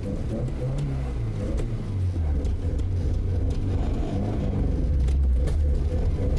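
Carbureted car engine revving under load while it strains to pull wheels frozen into ice, with a few sharp pops from the engine backfiring into the carburetor.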